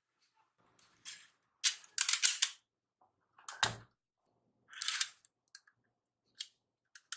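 Toy gun firing in short, sharp shots at irregular spacing, with a quick string of three or four shots about two seconds in. About halfway there is a single shot with a deeper thump in it.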